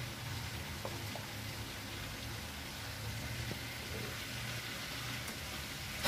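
Steady low background hum with an even hiss, and a couple of faint clicks about a second in.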